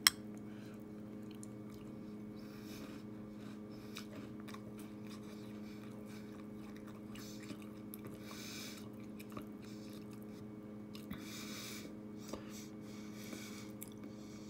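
A person chewing a mouthful of Pop-Tarts Brown Sugar Cinnamon cereal in milk, faint crunching a few times as the still-crisp pieces break up. A sharp click at the very start, and a low steady hum underneath.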